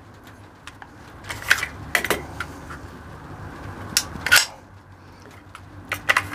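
Hi-Point 10mm pistol being handled: a series of sharp metallic clicks and clacks, a few in a row about a second and a half in, another pair about four seconds in, and more near the end.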